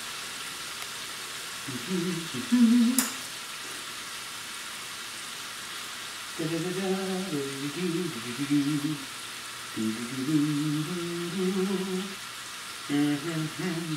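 Ribeye steak sizzling steadily in hot butter and oil in a frying pan, seared on its first side. Over it a man hums a tune in several short phrases, and there is a single click about three seconds in.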